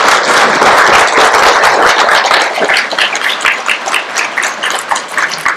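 Audience applauding: dense clapping that thins out to scattered separate claps near the end.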